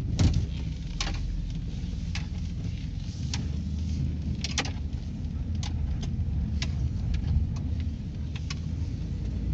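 Vehicle with a freshly rebuilt GM 4L60E automatic transmission running in gear, heard from inside the cab as a steady low engine and drivetrain rumble, with light clicks or rattles about once a second.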